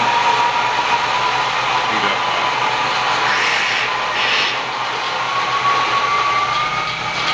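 Mahlkönig Pro-M coffee grinder grinding espresso beans, a steady motor whine that rises slightly in pitch in the second half.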